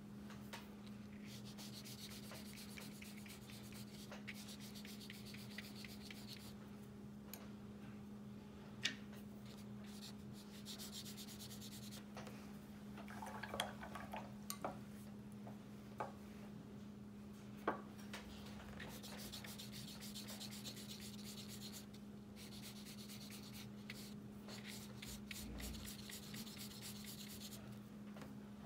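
Watercolour brush stroking back and forth across paper in several spells, a soft rubbing scratch, with a few sharp clicks in between. A steady low hum sits underneath.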